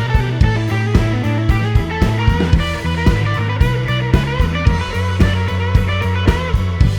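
Background rock music: electric guitar over a steady drum beat.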